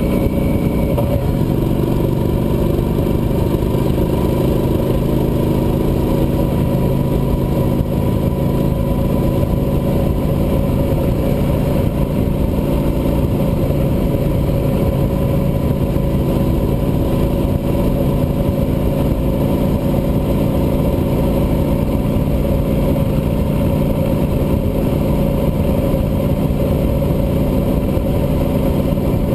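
Cruiser motorcycle engine running steadily at highway cruising speed, with a constant low rush of noise underneath. Its note shifts slightly about a second in, then holds even.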